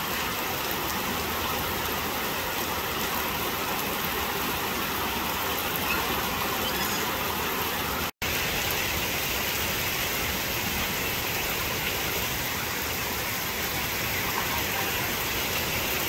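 Steady heavy rain falling on foliage and wet paving, an even hiss of drops with no break except a momentary cut-out about eight seconds in.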